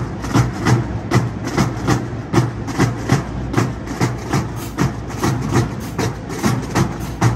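College marching band drumline playing a driving cadence: rapid snare and tenor drum strokes over a steady beat of heavy bass-drum hits, with crash cymbals.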